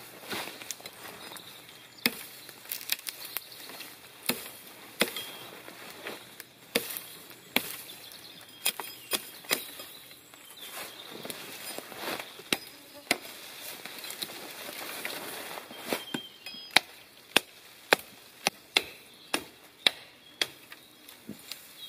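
Hatchet chopping branches off a fallen conifer: a run of sharp, irregular blows, coming faster, about two a second, over the last several seconds.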